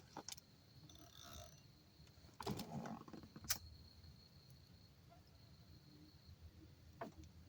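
Near silence broken by a few faint clicks and a short rustle, with a faint steady high-pitched tone underneath.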